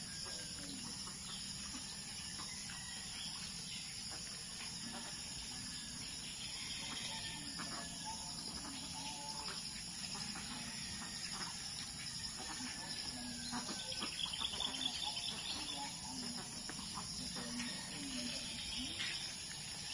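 Steady, high-pitched chorus of insects, with scattered short bird chirps over it and a brief louder stretch about two thirds of the way through.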